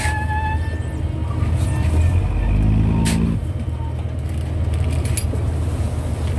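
Fishing boat's engine running with a steady low drone while the net of catch is hoisted out of the hold. A high steady whine fades out in the first half second, and a deeper hum swells briefly around the middle, with a few sharp knocks.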